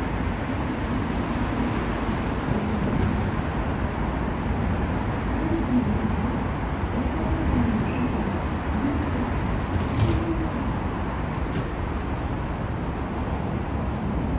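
Steady city street traffic noise of cars running past, with a brief click about ten seconds in.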